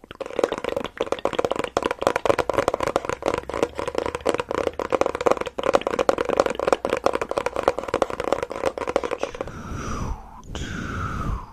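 Dense, rapid crackling and scratching right at the microphone for about nine seconds, then a few short falling swishes near the end.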